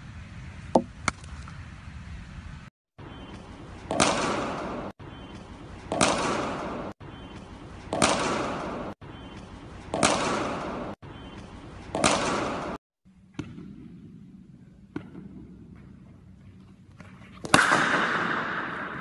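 Cricket bat striking the ball again and again: five sharp cracks about two seconds apart, each ringing out in a long echo, with a louder crack near the end. Two lighter clicks come just before them.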